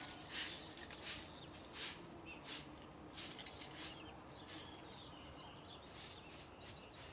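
Outdoor animal sounds: a short, high, hissy chirp repeating about every two-thirds of a second, with fainter warbling calls around the middle, over a quiet steady background.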